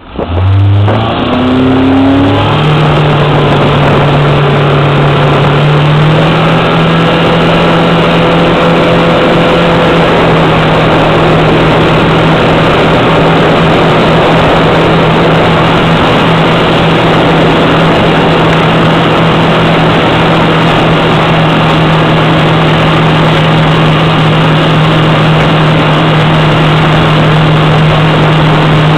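Towing motorboat's engine opened up hard to pull a water-skier up out of the water, climbing in pitch in steps over the first couple of seconds. It then runs loud and steady at towing speed, with a slight further rise a few seconds later.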